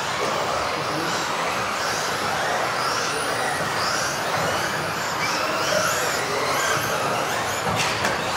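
Several electric 1:10 off-road RC buggies racing together, their motors whining and gliding up and down in pitch as they accelerate and brake, over a steady rush of tyre noise. A sharp knock comes near the end.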